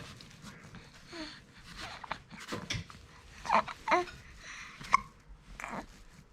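A run of hiccups: short, sudden catches of the breath with a brief voiced squeak, about one every second, the loudest three near the middle.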